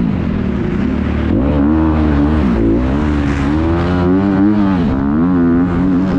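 Motocross bike engine heard close from the bike, revving hard with its pitch climbing and dropping every second or so as the throttle opens and closes.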